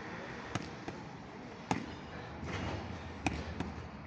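Boxing gloves smacking focus mitts: about five sharp slaps at uneven intervals, two coming in quick pairs, over a steady background hiss.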